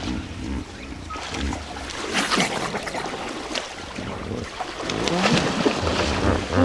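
Hippopotamuses moving in shallow water: splashing and sloshing. Toward the end come a few low grunting calls.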